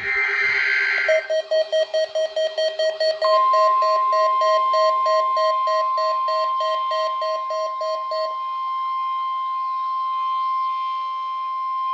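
NOAA weather radio alert tone: a single steady tone near 1 kHz that sounds from about three seconds in to the end, the 1050 Hz warning alarm tone used to switch on receivers. It opens with a brief noisy burst, and a faster-pulsing lower beep runs under it until about eight seconds in.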